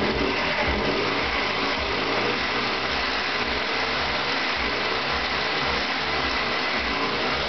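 Vyatka Elektron scooter's single-cylinder two-stroke engine running, with a worn-out piston and rings.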